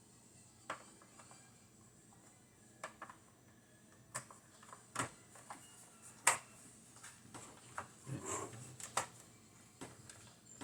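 Small hard plastic toy parts clicking and tapping together as they are handled and fitted, in irregular single clicks with a short rustle about eight seconds in.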